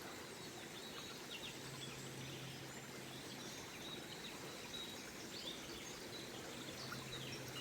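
Faint woodland ambience with a few distant birds chirping, and a low steady hum that starts about a second and a half in.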